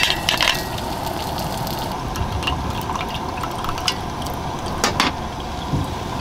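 Hot water poured from a kettle into a drip-bag coffee filter over a cup: a steady trickling stream. A few sharp clicks sound near the start and again about five seconds in.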